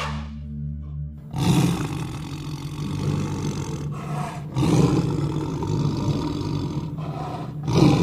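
A large animal roaring in long, deep, rough calls, starting about a second in and breaking off briefly twice.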